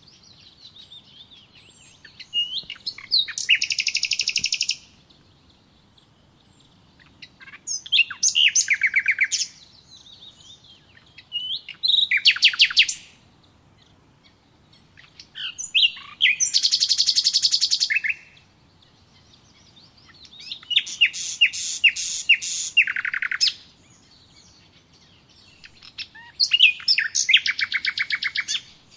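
A songbird singing loud, rapid trilled phrases, six in all, each lasting a second or two and coming about every four seconds, with softer chirps between them.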